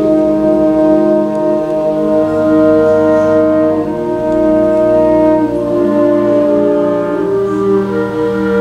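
Wind orchestra playing held chords that change every second or two, with brass prominent and low bass notes coming in about two seconds in.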